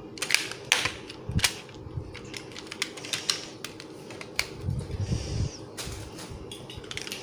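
Irregular sharp plastic clicks and knocks from a Beyblade top and its launcher being handled and fitted together, the top not seating easily for a launch.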